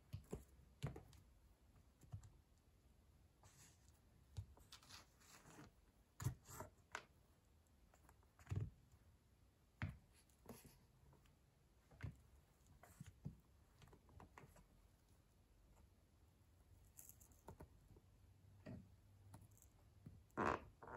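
Wooden pencil pressed under the sole and stiletto heel of leather platform boots on a laminate floor: faint, irregular clicks and small cracks from the wood and the heel, a dozen or so, with a sharper cluster near the end.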